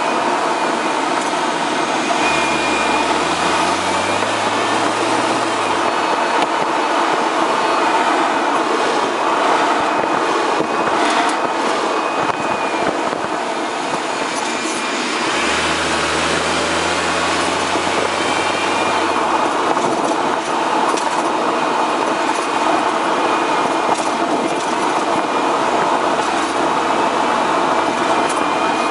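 Tyre and road noise from the front left wheel arch of a BMW 1 Series on the move, with scattered sharp clicks and a low hum rising in pitch twice. The clicking is the fault the owner hears when turning right; its cause is unknown.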